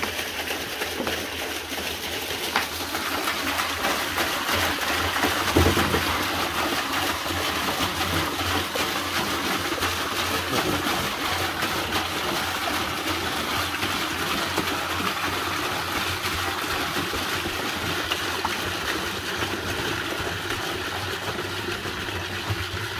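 Acetic acid pouring from two plastic jerrycans into a plastic drum of liquid, a steady splashing pour. A single knock sounds about five and a half seconds in.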